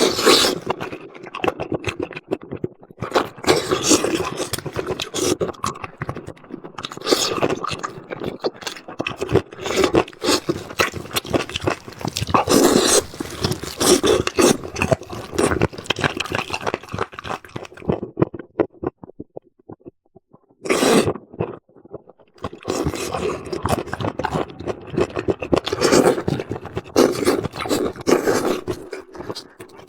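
Close-miked eating sounds: a person biting, chewing and slurping food in crackly bursts, pausing briefly about twenty seconds in.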